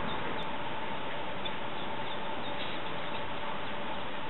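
Mallard ducklings peeping faintly in short, high, scattered calls over a steady background hiss with a constant low hum.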